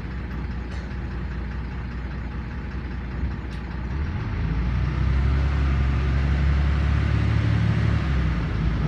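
LiAZ 5292 city bus engine running low and steady, then from about four seconds in pulling harder, louder and deeper as the bus accelerates, easing off near the end. A couple of faint clicks come early on.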